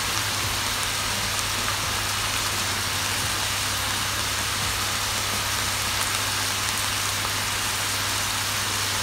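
Sliced mushrooms and tomato sizzling steadily in an oiled frying pan as they give off their water, over a low steady hum.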